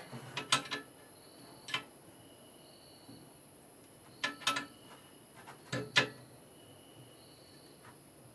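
Short metallic clicks and clanks from tools being worked on a jack rigged to pull a washing machine's basket. They come in four brief clusters, the loudest about six seconds in.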